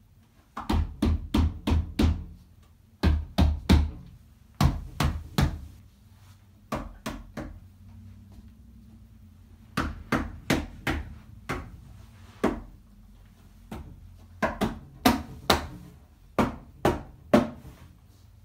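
Hands tapping and slapping on a hollow white plastic step stool: sharp knocks in quick runs of three to six, about four or five a second, with short pauses between runs.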